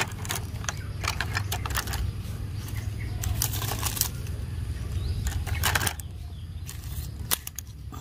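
Plastic toy train track pieces being handled and gathered among dry leaves: scattered clicks and clacks of plastic with crackling leaves, in several bunches, over a steady low rumble. It gets quieter in the last couple of seconds.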